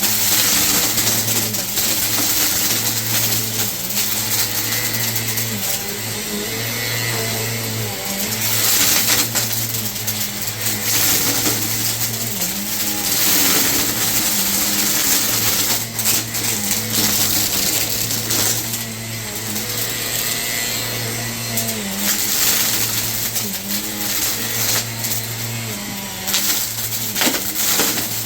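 Vacuum cleaner running steadily with a loud motor hum and rushing air, its tone dipping briefly every couple of seconds.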